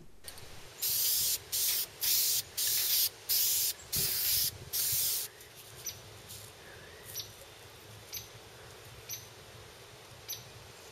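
Aerosol spray-paint can spraying in about eight short hissing bursts over four seconds, then stopping. Faint light ticks follow about once a second.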